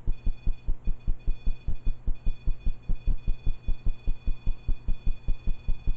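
A steady, even pulsing thump, about four to five beats a second, with faint steady high tones above it.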